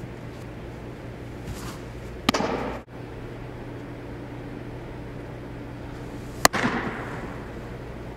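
Two sharp pops of a pitched baseball smacking into a leather catcher's mitt, about two seconds in and again about six and a half seconds in, each ringing out in a large echoing hall. A steady low hum lies underneath.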